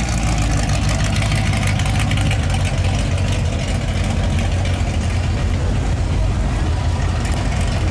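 Classic cars cruising slowly past at low speed, their engines running with a steady, deep rumble.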